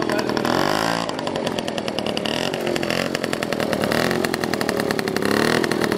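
Small two-stroke moped engine running close by, revving up and down: the pitch dips and climbs about a second in and rises again near the end.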